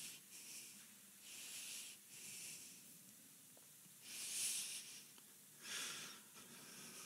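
A man's breathing picked up by a close handheld microphone: several soft, hissing breaths, the loudest about four seconds in and another near six seconds.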